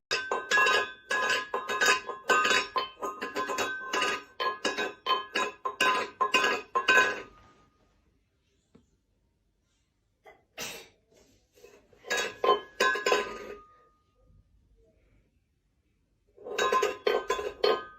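Rapid clinking of glass or dishes: quick strikes that ring, in a long burst for the first seven seconds or so, then after a pause two shorter bursts.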